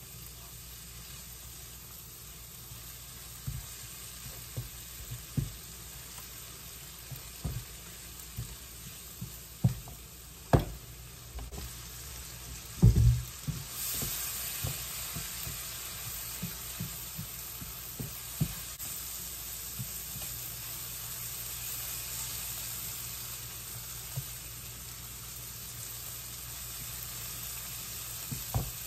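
Sliced mushrooms, onion and garlic sizzling in butter in a frying pan, stirred with a silicone spatula that knocks against the pan now and then. A heavier thump comes about halfway through as the pan is moved, and after it the sizzle is louder.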